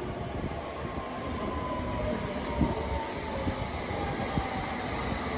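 London Underground S7 Stock train approaching out of the tunnel into the station: a steady rumble with a thin tone that falls slowly in pitch as the train slows.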